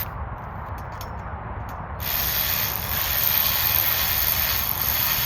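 A few light clicks, then about two seconds in a small cordless power tool starts and runs steadily, driving a bolt on the shooting table's frame.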